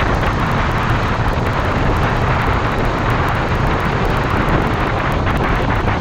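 Wind rushing steadily over the microphone at riding speed on a 2014 Honda CBR500R, with the bike's 471 cc parallel-twin engine running beneath it at a constant pace.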